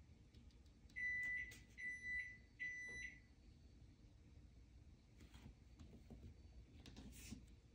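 Three high electronic beeps, each about half a second long, in quick succession about a second in.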